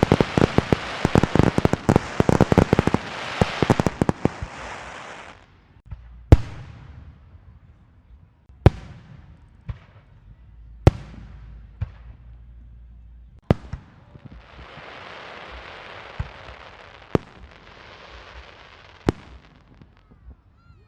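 A rapid string of firecrackers crackling for about the first five seconds, then stopping. After that come single firework bangs every couple of seconds, with a stretch of steady hissing crackle between them near the end.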